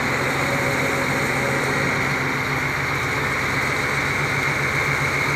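A heavy vehicle engine idling steadily, with a steady high whine over the low hum.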